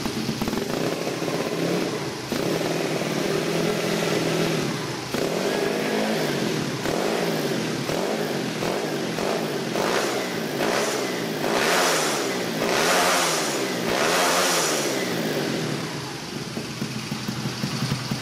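Honda Blade's 130 cc single-cylinder four-stroke engine, with a free-flow stainless exhaust and gutted muffler, running steadily. Partway in it is blipped up and down about once a second for several seconds, then settles back to idle.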